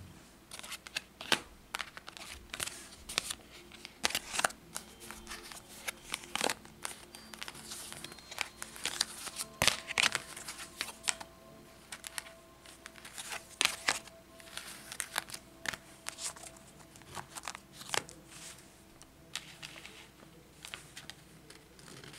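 Tarot cards being handled: irregular clicks, snaps and rustles as the cards are gathered, shuffled and set down on a table, with soft background music underneath.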